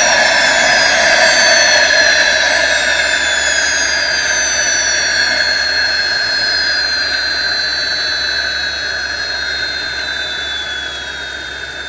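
Recorded twin jet-turbine shutdown sound from a Benedini TBSmini sound module, played through a single 4-inch speaker under the wing of a model Me 262: the turbine whine slowly falls in pitch and fades as the engines spool down.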